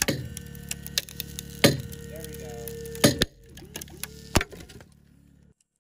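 Sharp cracks and pops from the sandstone around a glued-in climbing bolt as it is loaded at 45 degrees, about five in all, the loudest about three seconds in. A steady low hum runs underneath, and all sound cuts off near the end.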